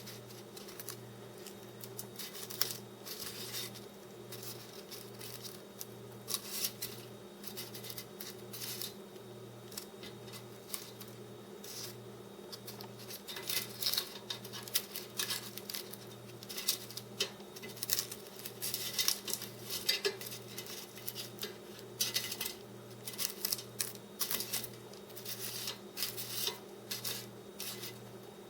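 Scattered light clicks and taps of a utensil against a metal air fryer basket as pastries are turned over, getting busier about halfway through.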